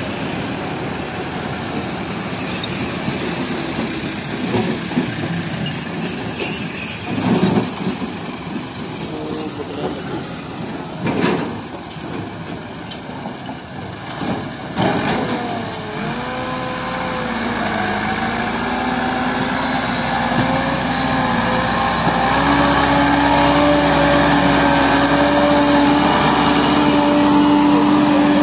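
Tractor engine: rough running with a few knocks in the first half, then about halfway the engine note rises and wavers before settling into a steady, louder pull.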